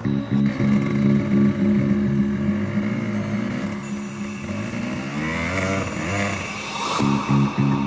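Dirt bike engine running, its pitch rising and falling several times near the middle as the throttle is worked, with a brief drop about seven seconds in.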